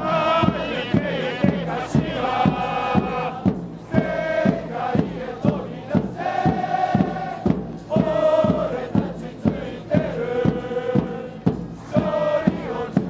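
A football supporters' stand singing a chant together in held, phrased notes over a steady beat of about three thumps a second.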